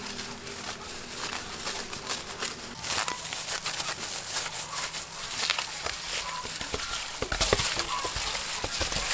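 A clear plastic glove crinkling, then a gloved hand squishing and tossing raw squid in chili-sauce marinade in an aluminium bowl: a dense run of wet clicks and squelches from about three seconds in.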